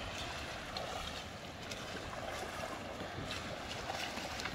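Steady wash of shallow sea water with wind on the microphone, broken by a few faint ticks or knocks.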